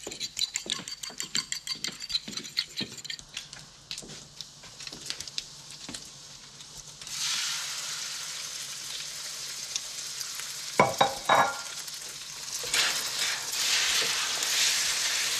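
A fork beating eggs in a bowl, quick clicking strokes about four a second, then about seven seconds in the eggs hit a hot frying pan and start sizzling, a steady hiss that grows louder as a fork stirs them in the pan. A few sharp knocks about eleven seconds in.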